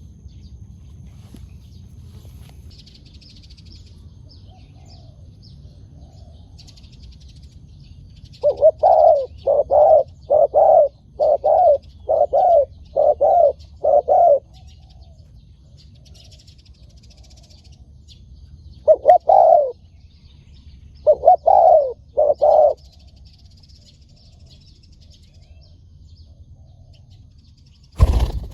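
Spotted dove cooing: a rapid run of about nine low coos, then a short phrase twice more. Faint chirping of small birds runs underneath, and there is a sharp click near the end.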